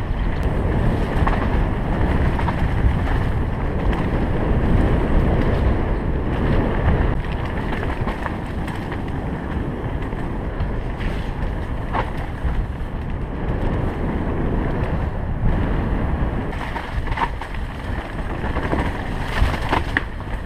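Wind rushing over an action camera's microphone and mountain bike tyres rolling over a dirt forest trail, a loud, steady rumble with a few sharp knocks from the bike over bumps.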